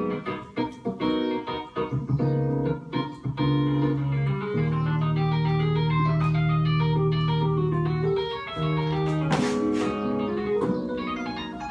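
Keyboard playing with an organ-like sound: held chords with melodic runs moving over them, and a short noisy swish about nine and a half seconds in.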